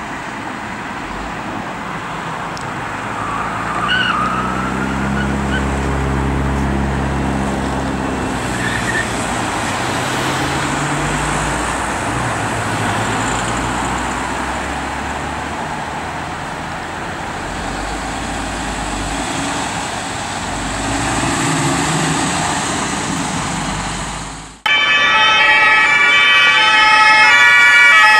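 Road and engine noise of a car speeding up, its pitch rising and falling, with a short tyre squeal about four seconds in. After a sudden cut near the end, a loud German police two-tone siren blares at close range.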